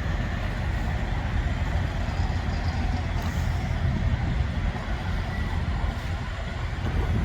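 Heavy semi-truck engine and road noise: a steady low rumble with no change in pace.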